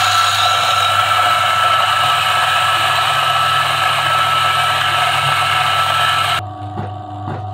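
DF64 flat-burr (64 mm) espresso grinder running, grinding a 15 g dose at a fine espresso setting: a steady motor whine with a grinding rasp, which cuts off about six and a half seconds in.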